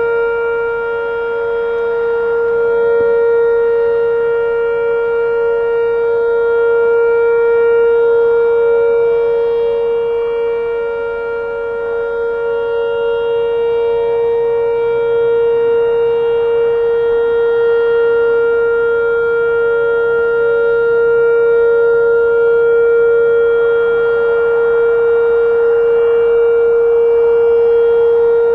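Whelen WS-2016 electronic outdoor warning siren sounding the alert signal: one loud, steady tone held without any rise or fall in pitch. Its loudness swells and fades slowly every several seconds.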